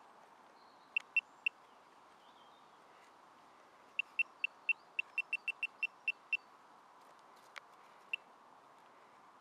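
Handheld metal-detecting pinpointer beeping as it is probed in a freshly dug hole. It gives three short high beeps about a second in, a quicker run of about a dozen beeps from about four seconds, and one more beep near the end, signalling metal in the soil.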